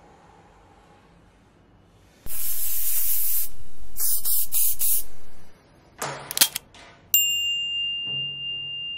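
Animated-logo sound effects: a loud hissing whoosh lasting about three seconds, then a few quick mouse clicks, then a notification-bell ding that rings on and slowly fades.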